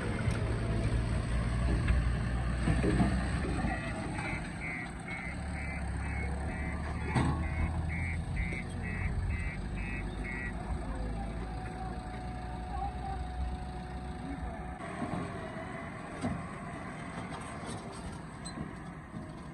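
JCB 3DX backhoe loader's diesel engine running, with its reversing alarm beeping about twice a second for roughly six seconds, starting about four seconds in. A sharp knock sounds about seven seconds in.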